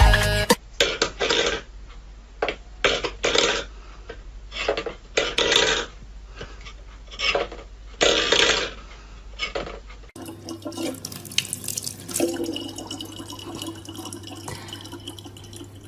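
Water splashing in short, irregular bursts, a dozen or so, then a sudden change to a low steady hum.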